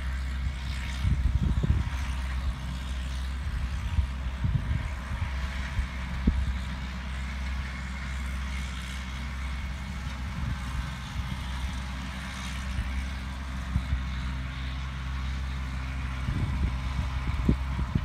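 Distant farm tractor engine running steadily, a low even drone, with occasional low thumps.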